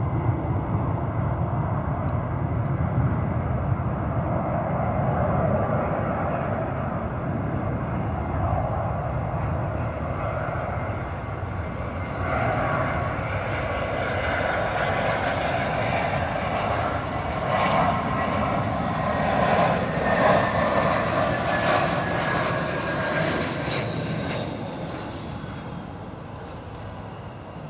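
An Airbus A319-131 on final approach, its two IAE V2500 turbofan engines running. The jet noise builds about halfway through, with a high whine falling in pitch as the airliner passes close. It is loudest around two-thirds of the way in, then fades as the aircraft reaches the runway.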